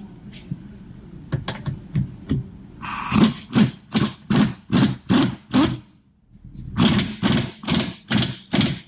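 Hand ratchet turning a 14 mm bolt on a suspension arm in quick back-and-forth strokes, a burst of clicks about two and a half times a second. It comes in two runs with a short pause between them, after a few scattered ticks.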